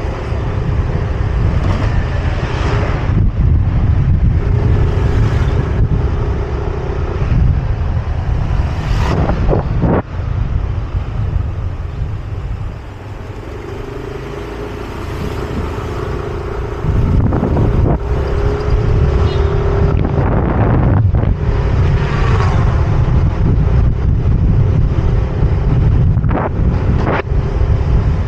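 Yamaha scooter riding along a street: heavy wind rush on the microphone over the scooter's engine drone, easing off in the middle as it slows, then building again. A few other vehicles sweep past.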